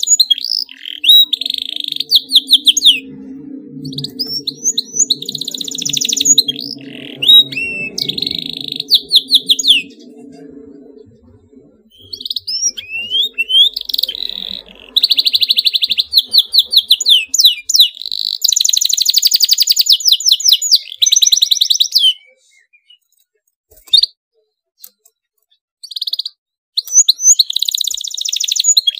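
Domestic canary singing in phrases of fast, tight rolling trills and rapid repeated notes, with short pauses between phrases and a longer pause about two-thirds of the way through. A faint low hum runs underneath for roughly the first third.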